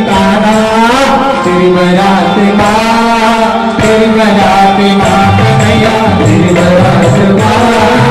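A man singing a Hindu devotional Krishna bhajan into a microphone over amplified instrumental backing. A steady held note sits under the voice, and a low bass line comes in about five seconds in.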